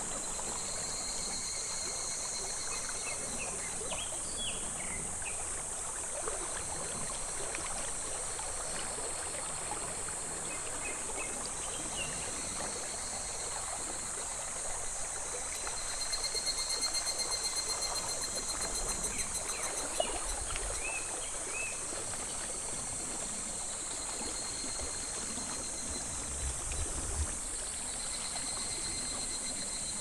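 Shallow, slow clear stream babbling steadily over a pebble bed, with cicadas singing on and off in a steady pulsing drone.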